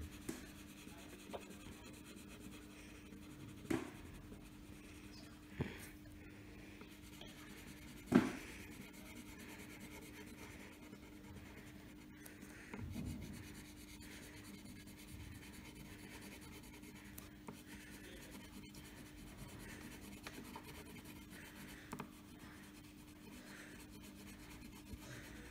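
Wax crayon rubbing back and forth on paper as number squares are coloured in, a faint continuous scratching, with a few light knocks, the loudest about eight seconds in.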